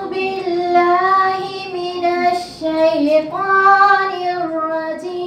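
A young woman reciting the Quran in a melodic chant, one voice holding long notes that bend and waver, with a short break near the middle.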